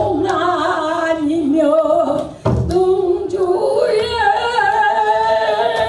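An 86-year-old woman singing pansori solo. Her voice wavers through a phrase, breaks off briefly about two and a half seconds in, then holds a long note.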